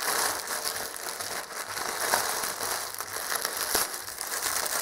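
Plastic postal mailer bag crinkling and rustling as hands open it and pull out a toy in a clear plastic wrapper, with many small crackles throughout.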